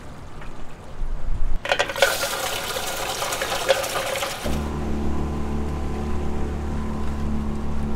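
Rushing, splashing water for a few seconds, then from about halfway through a small outboard motor running steadily at low speed.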